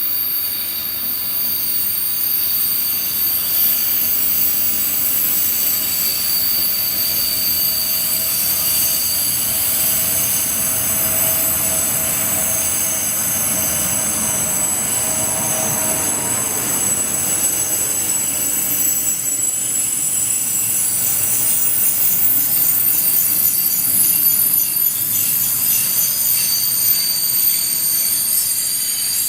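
Long, shrill brake squeal from the special train hauled by Deutsche Reichsbahn steam locomotive 18 201, several high tones sounding together over the rumble of the rolling train as it slows.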